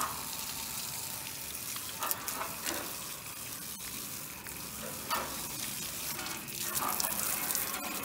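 Garden hose spraying a steady hissing stream of water onto an outdoor air-conditioner condenser unit and the ground beside it.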